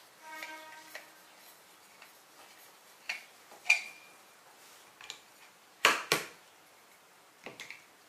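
Wooden table legs knocking and clicking against the bamboo tabletop and snapping into its metal storage clips: scattered light clicks, with the loudest a pair of sharp clacks about six seconds in. A short squeak comes near the start.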